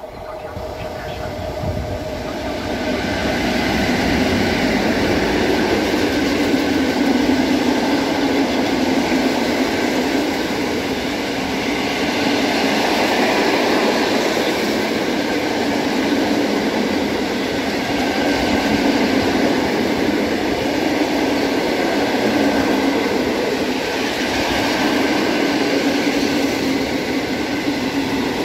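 Freight train of covered hopper wagons rolling past on the rails: a steady rumble and clatter of wheels that builds over the first few seconds as the train arrives, then carries on evenly as the wagons go by.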